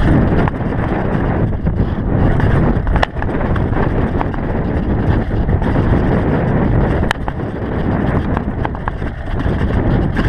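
Wind buffeting a helmet-mounted camera microphone over the rumble and rattle of a GT DHi downhill mountain bike riding fast down a dirt singletrack. Two sharp clacks stand out, about three and seven seconds in.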